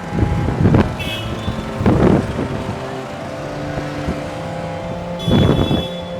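City street traffic: vehicle engines running steadily, with three louder swells as vehicles pass close by, near the start, at about two seconds and near the end.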